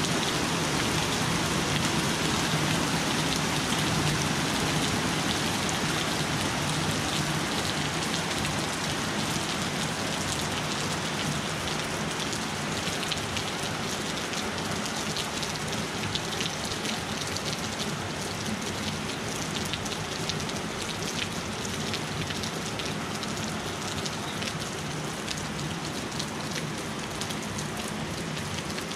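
Heavy rain pouring steadily through trees, a dense hiss with many sharp single ticks of hard impacts over it that grow more frequent in the second half, while the downpour eases slightly.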